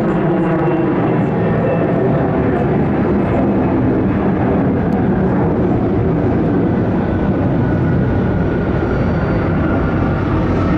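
Airbus A300-600F freighter's jet engines during the landing rollout: a loud, steady rumble with an engine whine that climbs slightly near the end.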